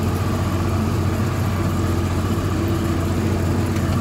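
Spreader truck's engine running steadily under load, a low drone heard from inside the closed cab as the truck drives across the pasture.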